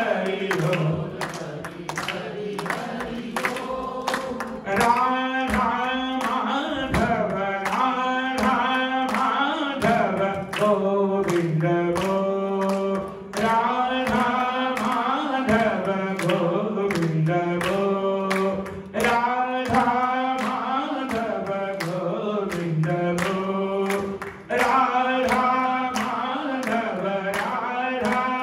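A group singing a Hindu devotional kirtan chant, with sustained voices that waver in pitch, over a steady beat of sharp percussive strikes.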